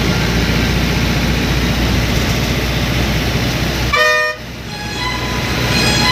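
Bus engine running steadily under way, heard from inside the driver's cab, with a short horn blast about four seconds in. Right after the horn the engine's low drone drops away and then builds back.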